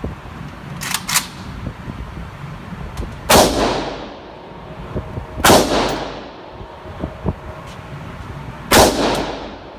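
Firearm shots at a shooting range: three loud gunshots, each ringing off afterwards, at about three, five and a half, and nine seconds in. Two fainter shots come close together about a second in.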